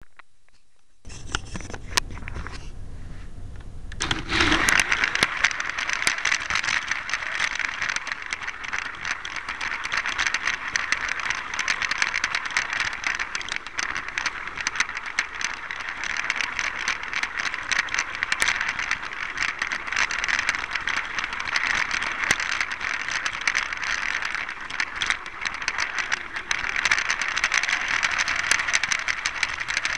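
High-speed LEGO train running on plastic track, heard from on board: a steady rattling clatter of wheels and motor with many quick clicks, growing much louder about four seconds in.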